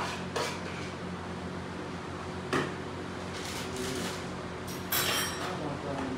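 A plastic zip-top bag being handled while leftovers are packed into it, with a few light knocks on the table and a brief crinkle of plastic about five seconds in, over a steady low hum.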